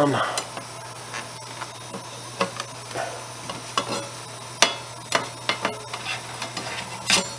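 Scattered small clicks, taps and rustles of hands working on electrical wiring and refitting an electrical box cover, over a steady low hum. A sharper click comes a little past halfway.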